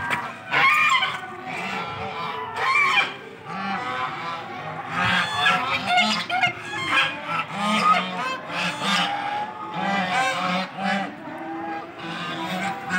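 Flock of white domestic geese honking, many short calls overlapping and repeating throughout.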